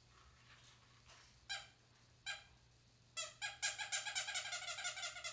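Squeakers in a pair of toddler's squeaky shoes being squeezed: two single squeaks, then a quick run of squeaks, about six a second, in the last two seconds.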